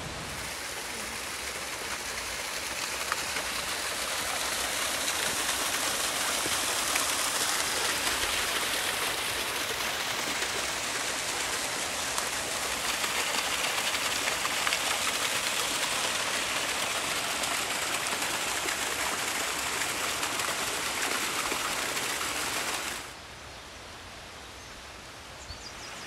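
Small waterfall splashing down over mossy rocks: a steady rush of falling water. Near the end it drops suddenly to the quieter rush of a small stream.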